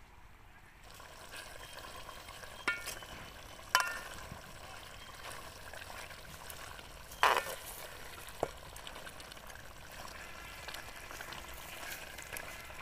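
Chicken gravy bubbling and sizzling in a metal pan over a wood fire while a metal ladle stirs it, knocking and scraping against the pan four times.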